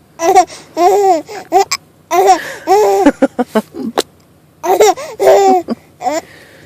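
A baby laughing in short, hiccup-like bursts: three bouts of high-pitched laughter with brief pauses between them, each burst rising and falling in pitch.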